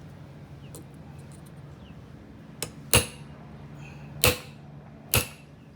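Hammer striking a steel punch in three sharp metallic blows, about a second apart, punching out the wrist pin seal of a Detroit Diesel 8V53 piston. A steady low hum runs underneath.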